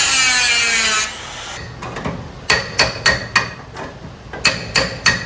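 A power tool spinning down, its pitch falling, and stopping about a second in, followed by seven light, sharp hammer taps with a metallic ring, in two quick groups.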